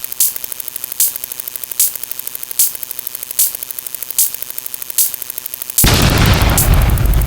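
Sound effects: rapid ticking with a sharper click a little under once a second. About six seconds in, a sudden loud, noisy blast heavy in the lows cuts in and carries on.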